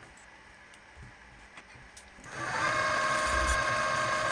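A few faint knocks, then about two seconds in a milling machine's spindle motor starts up and runs steadily with a whine of several fixed pitches, a drill bit turning in its chuck.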